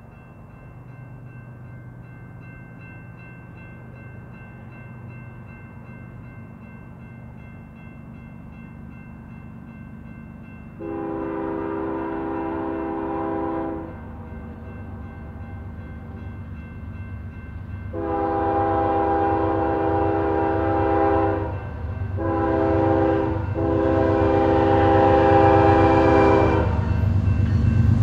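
Norfolk Southern diesel freight locomotive sounding its multi-tone air horn in the long, long, short, long pattern that signals a grade crossing. Under the horn, the locomotive's engine rumble grows louder as the train approaches.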